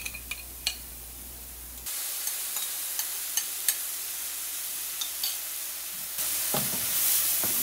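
Tamarind pulp poured into a hot pan of oil-fried lentils, nuts and spices hits with a sudden loud sizzle about two seconds in, then hisses steadily as it is scraped in from the bowl and stirred with a wooden spatula. A few knocks of the spatula on the pan near the end.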